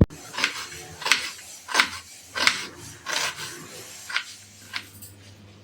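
Repeated short rubbing or scraping strokes, about three every two seconds, growing fainter toward the end.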